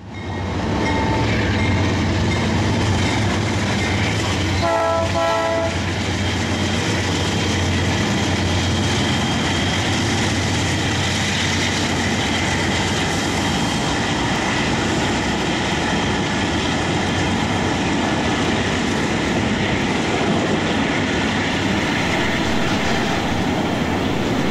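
Norfolk Southern diesel freight locomotives, a GE Dash 9-44CW among them, rumble past under power. Their horn gives one short blast about five seconds in. Then comes the steady rolling rattle and clatter of double-stack intermodal cars on the rails.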